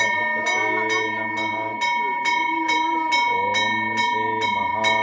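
A temple bell rung over and over, about two strokes a second, its ringing held continuously between strokes, with a voice chanting or talking over it.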